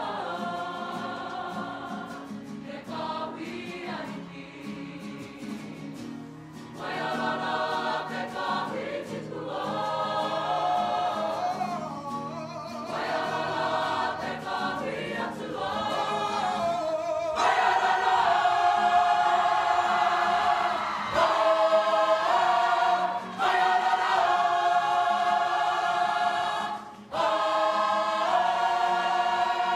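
A Māori kapa haka group of men and women singing together in full voice, in long phrases broken by short pauses for breath, growing louder a little past halfway.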